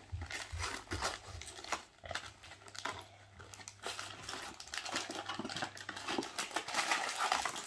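Cardboard of a LEGO set box being torn and pulled apart by hand: irregular crinkling, tearing and rustling, busiest and loudest near the end.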